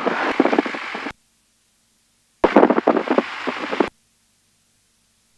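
Crackling noise through the aircraft's headset intercom, cutting in and out abruptly twice as the voice-activated squelch opens and closes. Between the bursts the line is dead apart from a faint hum.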